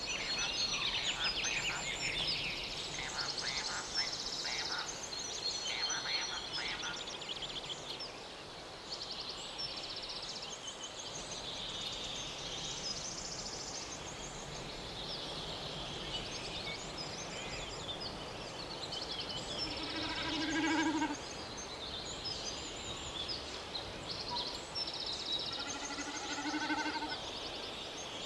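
Many birds chirping and singing over a steady outdoor background noise, with a louder, lower call about twenty seconds in.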